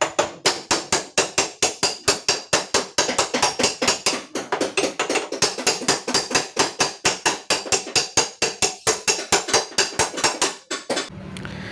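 Rapid, even hammer blows on the sheet-metal door panel of a Toyota Calya, about four to five a second, as the dent is tapped out straight. The hammering stops about a second before the end.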